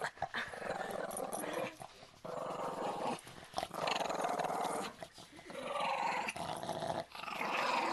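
Pug making a throaty, growl-like 'purr' in rough stretches of a second or so, broken by short pauses.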